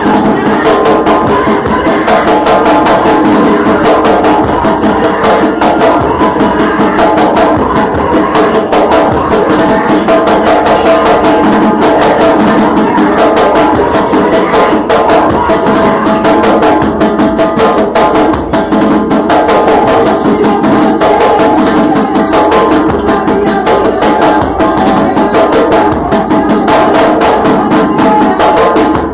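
Loud music with drums and other percussion playing steadily throughout.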